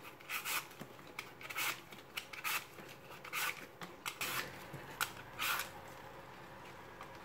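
Apple being peeled with a Y-shaped vegetable peeler: a series of short scraping strokes as the blade shaves off the skin, about one a second, stopping shortly before the end.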